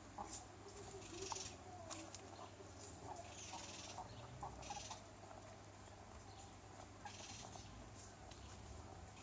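Chickens resting in a flock, making faint, scattered soft clucks and low purring trills. Short bursts of high hiss come and go behind them.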